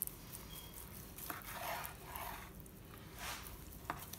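Long knife slicing through smoked beef brisket on a wooden cutting board: faint, soft sawing strokes, with a couple of light clicks near the end.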